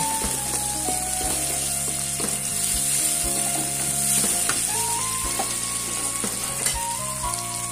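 Sliced shallots, garlic and chilies sizzling in hot oil in a wok, stirred with a wooden spatula that knocks and scrapes against the pan now and then. The aromatics are being sautéed until fragrant and wilted.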